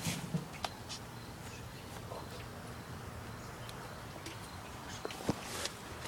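Quiet outdoor background with a few faint clicks near the start and a short rustle near the end.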